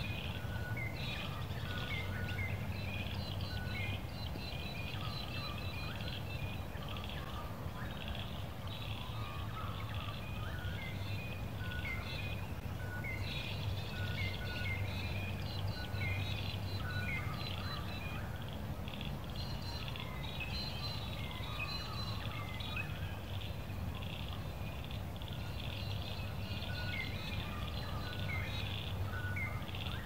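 Many birds chirping and calling at once, a continuous chorus of short, overlapping chirps and whistled notes, over a low steady rumble.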